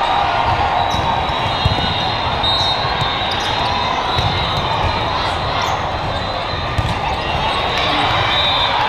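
Volleyballs being struck and hitting the floor, sharp knocks over a steady hubbub of voices echoing in a large hall, with one louder smack about two seconds in.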